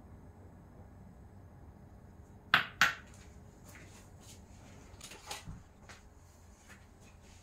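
Two sharp glassy clinks a quarter second apart as a small glass prep bowl, just emptied of cocoa powder, is knocked and put down, followed by a few faint light taps of kitchen things being handled.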